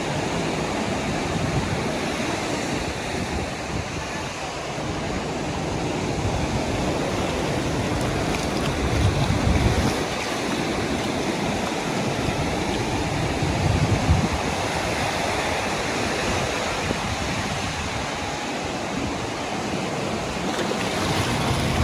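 Sea waves washing onto a sandy beach in a steady rushing hiss, with gusts of wind buffeting the microphone in low rumbles a few times.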